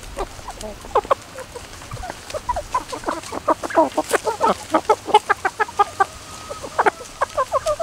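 A flock of gamefowl chickens, asils and Liege fighters, clucking as they forage: a run of short clucks, several a second, that is thickest in the middle.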